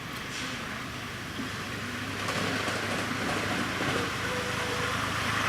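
5-inch gauge live steam 2-8-4 pannier tank locomotive running, a hissing, rushing noise that grows steadily louder.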